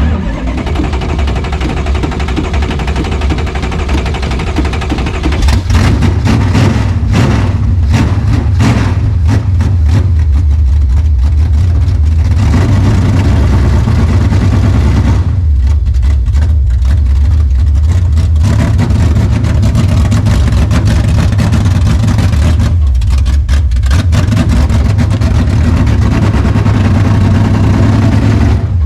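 Dodge Challenger's 440 big-block V8 catching and running loud, its revs swelling and dropping unevenly. It is running on a small splash of fuel poured in to get it going.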